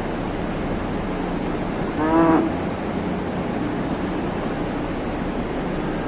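A dairy cow gives one short moo about two seconds in, over a steady background hiss.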